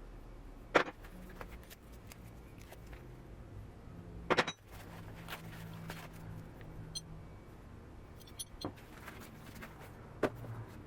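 Handling noises while unpacking a parcel: two sharp knocks, about a second in and a little after four seconds, with smaller clicks and rattles over a low steady hum.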